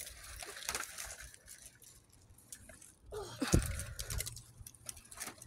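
A wooden stick scraping and knocking among prickly pear cactus pads as nopales are pried off, with scattered light rustles and clicks and one louder thump about three and a half seconds in.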